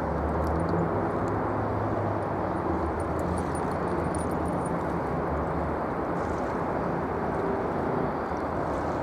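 Jet airliner engines: a steady, deep roar with a low hum running under it.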